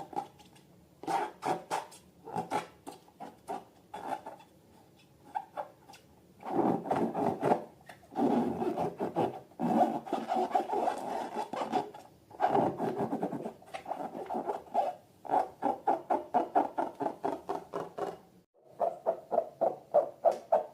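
Rubber balloons being rubbed and squeezed by hand, in bursts of quick repeated strokes with short pauses between them.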